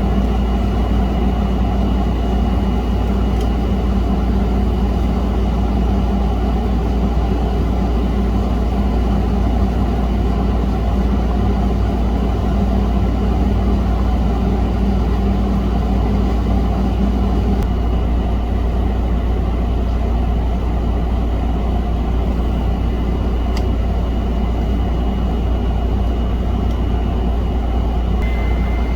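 A steady, loud low hum from a running electric machine, with a faint high whine over it. The hum's mid layer drops away a little after halfway through.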